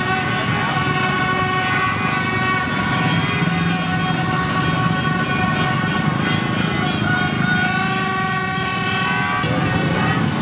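A celebrating crowd on motorbikes: many horns honking and sounding without pause over a dense mass of motorbike engines and voices.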